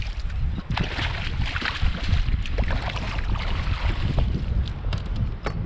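Water splashing as a hooked pompano thrashes at the surface and is scooped into a landing net beside a kayak, the splashing busiest in the first couple of seconds, over a steady low rumble of wind on the microphone. A few sharp ticks come near the end.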